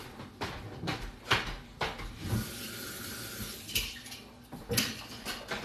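Kitchen handling sounds: a string of separate knocks and clatters, with a short hissing stretch near the middle.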